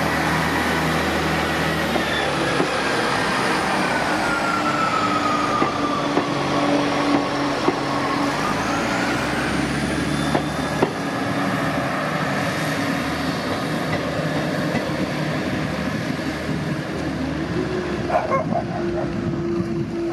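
British Rail Class 158 diesel multiple unit pulling away, its underfloor diesel engines running under load. A whine slowly falls in pitch over several seconds, then rises again, with a few sharp clicks along the way.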